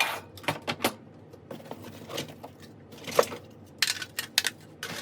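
Fire alarm devices and parts being handled and set down: an irregular string of sharp clacks and clicks, with a cluster of louder knocks near the end.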